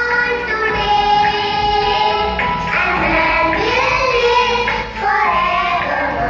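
A group of young children singing a song together into microphones, the notes held long and sustained.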